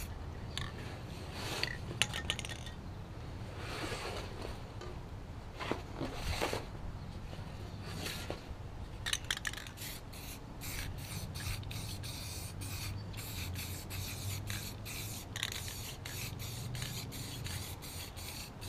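Aerosol spray-paint can spraying in many short hisses, with scraping and rubbing as the mower deck is turned and handled.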